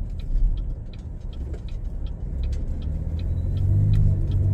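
Car driving, heard from inside: a steady low rumble of engine and road noise that grows louder over the last two seconds or so.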